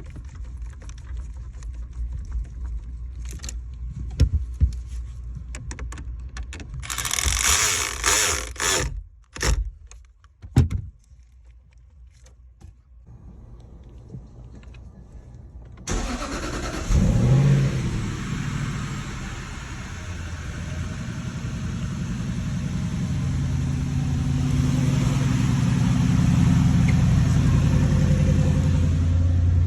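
Clicks and a few knocks, then about sixteen seconds in a 2007 Jaguar XK's 4.2-litre V8 starts, flares briefly and settles into a steady idle.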